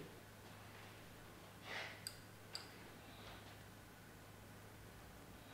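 Near silence: room tone with a steady low hum, a faint breath about two seconds in, and two soft clicks shortly after.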